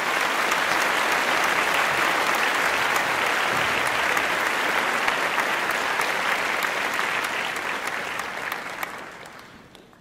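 A crowd applauding steadily, fading out over the last two seconds.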